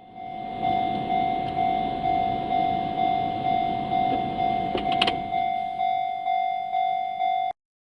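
Japanese railway level-crossing warning bell ringing its steady electronic clang, about two strikes a second, over low road rumble; a short knock sounds about five seconds in, and the ringing cuts off suddenly near the end.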